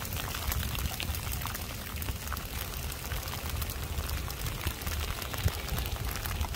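Steady rain falling on pooled floodwater and wet ground: a constant hiss of many small drop ticks over a low rumble.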